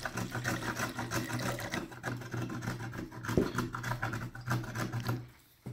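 Clear spirit glugging rapidly out of a bottle neck as it is poured into a measuring cup to the 100 ml mark. It stops about five seconds in.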